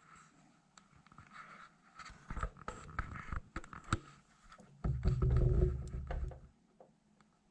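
Irregular clicks, knocks and scraping from handling a manual portable typewriter and its hard shell case, with a louder stretch of low rumbling handling noise about five seconds in.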